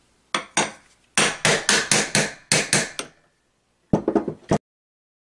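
Hammer tapping on the end cover of an electric motor being reassembled, to seat it. It goes as a run of sharp quick blows at about four a second, a short pause, then a few more quick taps before the sound cuts off suddenly.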